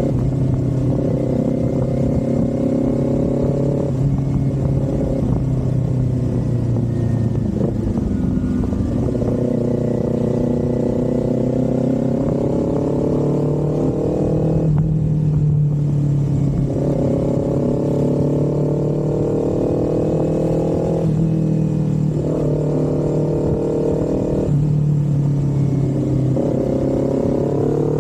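Kawasaki Z400's 399 cc parallel-twin engine and exhaust under way. The revs climb slowly and drop sharply several times as the throttle and gears change.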